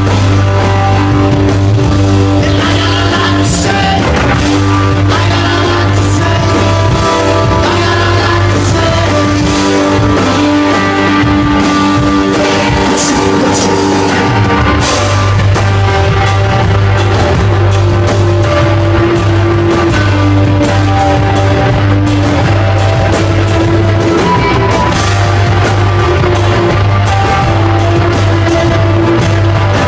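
Loud rock band playing live: guitar, bass and drums, with the bass held steady underneath and frequent drum and cymbal hits.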